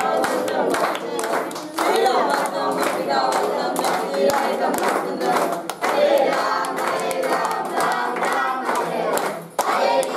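Group singing of a devotional aarti to Ganesh, a man's voice leading through a microphone, with people clapping in time throughout.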